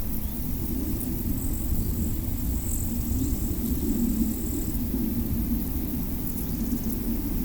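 A steady low rumble in the open air, with scattered faint ticks and a thin high whine from about a second in until about five seconds.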